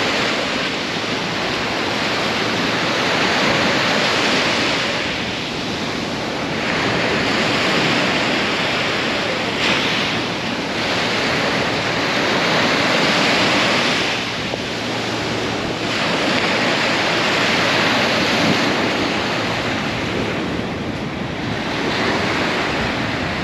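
Surf washing in: a loud, rushing hiss of water that swells and eases back about every five seconds, with wind buffeting the microphone.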